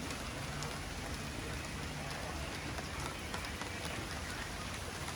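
Steady rain falling: an even hiss with scattered drips ticking through it.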